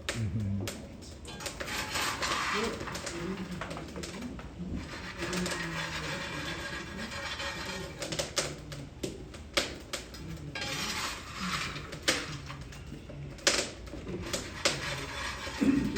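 Forge fire of kindling wood and freshly added coal crackling, with sharp pops scattered through, the popping from the coal being a little wet. Faint voices murmur underneath.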